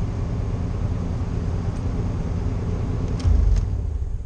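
A 1992 Chevy K1500's 4.3-litre throttle-body-injected V6 idling steadily through a Cherry Bomb muffler, heard from inside the cab. There is a brief louder low thump about three seconds in, and the engine is switched off right at the end.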